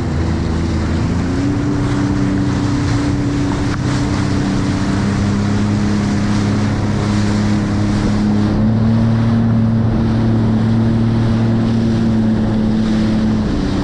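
Jet ski engine running at speed with a steady drone, its pitch stepping up slightly about a second in and again a little past the middle. Wind buffeting the microphone and rushing water from the hull and spray run underneath.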